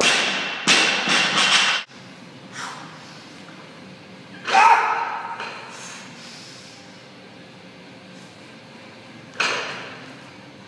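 Barbell with bumper plates dropped on a wooden lifting platform, bouncing several times in the first two seconds. Later come single thuds and clanks of the bar and the lifter's feet on the platform, one about halfway and another as the snatch is caught overhead near the end.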